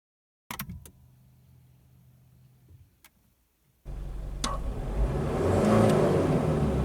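A few sharp clicks and a faint low hum, then about four seconds in a sudden loud rumble of an off-road SUV's engine and driving noise that grows louder.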